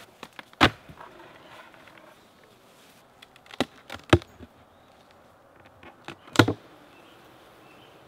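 A hive tool prying and the wooden covers of a beehive being lifted off: four sharp cracks and knocks, the loudest near the end, over a faint hum of bees.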